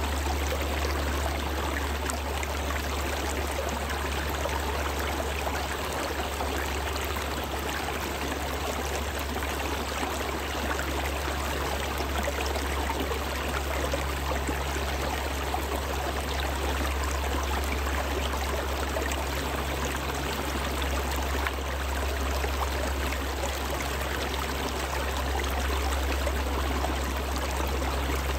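Shallow stream, partly iced over, flowing steadily over rocks: an even rush of water with a steady low rumble underneath.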